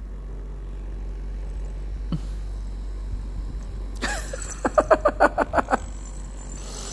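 Handheld electric massager motor running with a steady low hum. About four seconds in, a burst of rapid laughter, about six short pulses a second, lasting around two seconds.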